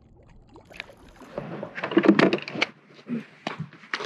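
Water splashing as a released smallmouth bass kicks away at the surface beside the boat: a run of quick splashes, loudest about two seconds in, with a few smaller ones near the end.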